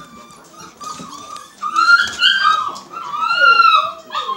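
Siberian huskies whining during play: a string of high, sliding calls that mostly fall in pitch, several overlapping, loudest about two seconds and three and a half seconds in.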